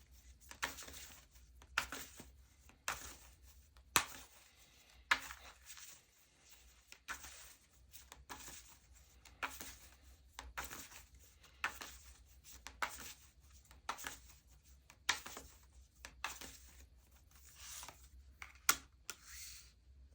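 Tarot cards being shuffled and handled: a run of short, crisp card snaps and rustles, about one a second.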